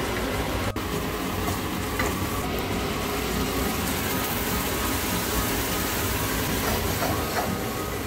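Chopped onions and tomato purée sizzling in hot oil in a frying pan, a steady hiss.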